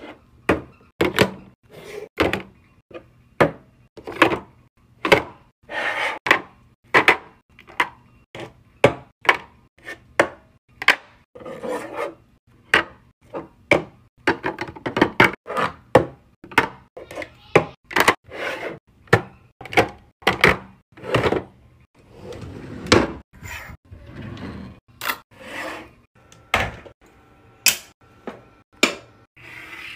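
Small makeup products and containers being picked up and set down one by one on a hard vanity top and into clear plastic drawer organizers: a steady run of sharp clacks and thunks, about one or two a second, with some sliding and scraping in between.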